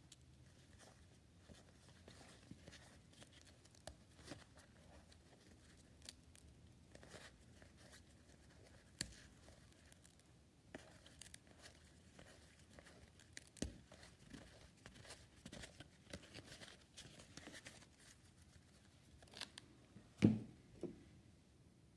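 Trading cards and a foil pack wrapper being handled: soft tearing and crinkling with small scattered taps, and a louder knock near the end.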